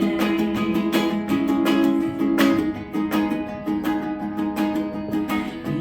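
Ukulele strummed in a steady rhythm of several strokes a second, playing an instrumental passage of chords between sung lines.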